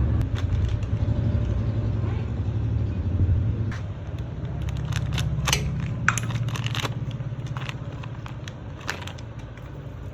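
Motorcycle engine idling with a steady low pulse, louder for the first few seconds and then settling lower, with a series of sharp metallic clicks and clanks about halfway through.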